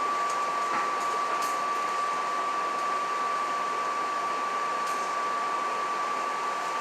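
Interior noise of a 1976 GE Silverliner IV electric commuter rail car under way: a steady hiss and hum with a constant high-pitched tone, and a few faint clicks.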